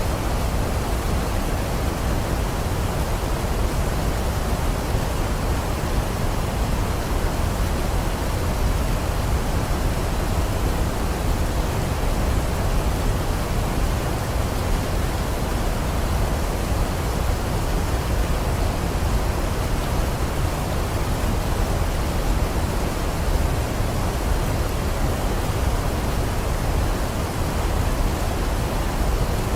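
Waterfall rushing: a steady, unbroken roar of falling water, strongest in the low rumble.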